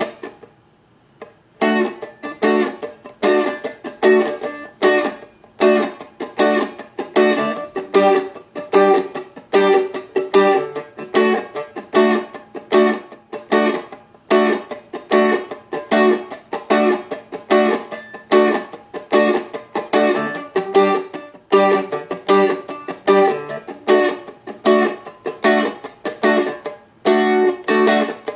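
Seagull Merlin, a four-string dulcimer-style fretted instrument, strummed in a reggae rhythm: chords struck on the upbeat with muted hits in between. The strumming starts about a second and a half in and runs on at a steady pace.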